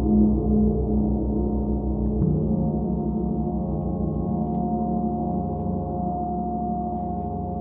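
Large gong played with soft felt mallets: a sustained, shimmering wash of many overlapping tones with slow beating in the low range. A new soft stroke about two seconds in shifts the low tones, and one higher tone grows stronger near the end.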